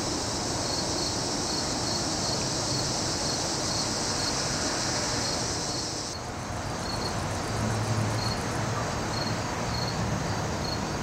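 Evening insect chorus of crickets: a pulsed high chirping about three times a second over a continuous high buzz, which stops about six seconds in while the chirping goes on. A low outdoor rumble sits underneath.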